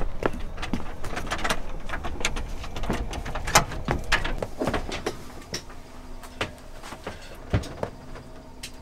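Irregular knocks, clicks and thuds of someone moving about on a sailboat's deck and hatch, denser in the first half and thinning out later. A faint steady hum comes in about halfway.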